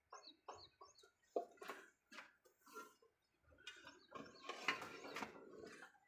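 Faint scattered short sounds. Thin high calls in the first second and clucking-like bursts give way, in the second half, to a busier run of footsteps as a person walks in sandals over a dirt floor and out onto dirt ground.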